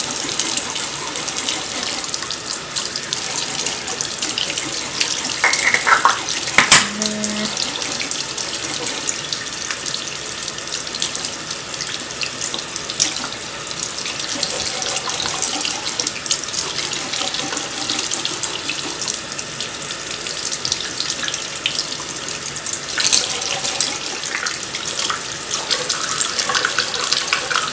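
Bathroom faucet running steadily into a sink, the stream splashing over hands and makeup brushes being washed under it, with a single sharp knock about a quarter of the way in.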